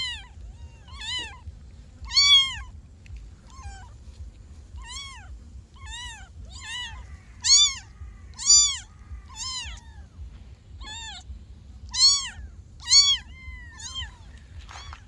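Kittens meowing: short, high-pitched meows, each rising and then falling in pitch, about one a second, some louder than others.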